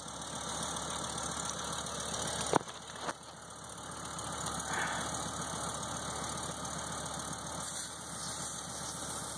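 A valve stem and a dial tire pressure gauge being handled at a car tire: a sharp click about two and a half seconds in, a softer click half a second later, and a short hiss near the middle, over a steady low engine-like rumble.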